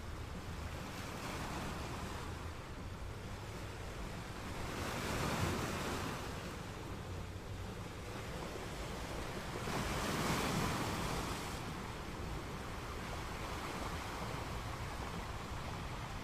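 Sea waves and wind on open water: a steady wash with wind rumble on the microphone, swelling louder twice, about five and ten seconds in.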